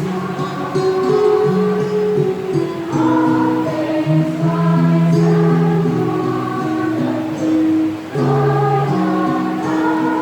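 A choir singing in several parts, holding sustained notes that move together from chord to chord.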